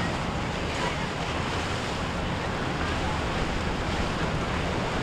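Steady rush of wind and surf, with wind buffeting the microphone and a low steady hum underneath.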